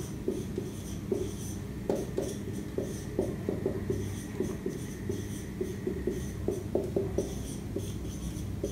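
Marker writing on a whiteboard: a run of short, irregular squeaky strokes and light taps as letters are written.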